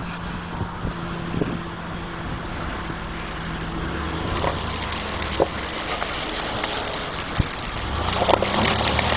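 SUV engine running at low speed while its tyres roll and slosh through mud and shallow puddles, with wind on the microphone. The engine hum steps lower about four seconds in, and there are a few sharp knocks from stones or mud under the tyres.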